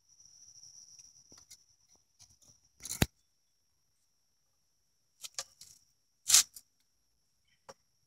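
Hive tool prying and scraping at hive parts glued with propolis: scattered sharp cracks and scrapes, the loudest about six seconds in, over a faint steady high-pitched whine.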